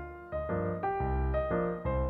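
Slow piano music, a new note or chord struck about twice a second, each ringing and fading.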